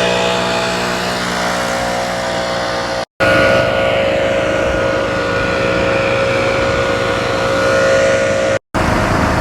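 A small gas engine on lawn equipment running steadily at high speed, in three stretches split by abrupt cuts about three seconds in and near the end.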